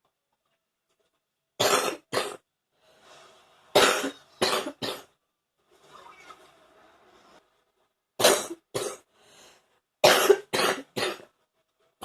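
A woman's wet, phlegmy cough, coming in four bouts of two to four sharp coughs each, with softer breathing sounds between bouts: coughing up morning phlegm.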